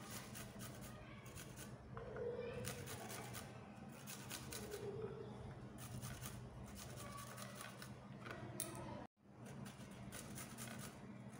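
Garlic cloves being grated on a flat metal hand grater: repeated rasping scrapes, stroke after stroke, over a faint steady hum. The sound cuts out for a moment about nine seconds in.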